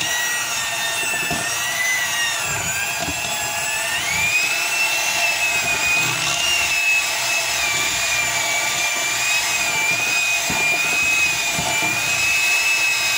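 Electric hand mixer running, its beaters creaming a thick cream cheese mixture in a bowl. A steady motor whine that wavers in pitch as the beaters meet the load, rising to a higher pitch about four seconds in.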